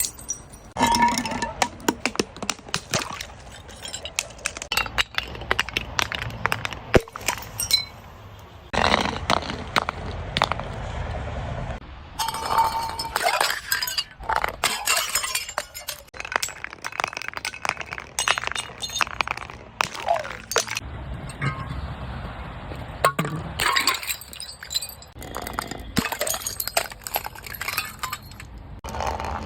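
Glass bottles being crushed and broken: repeated cracking, crunching and clinking of glass shards in several bursts.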